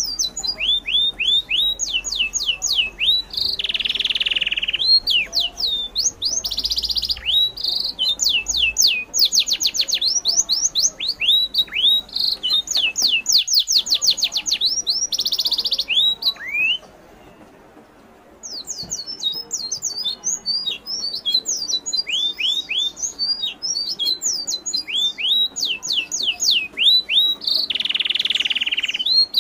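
Birds chirping: runs of quick, high chirps that each fall in pitch, coming very fast in places. A few short, hissy squawks are mixed in, and the chirping stops briefly about two-thirds of the way through.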